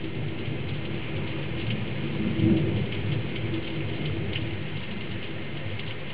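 Heavy thunderstorm downpour: rain pouring steadily, with scattered drops ticking on a nearby surface. A low rumble of thunder swells briefly about two and a half seconds in.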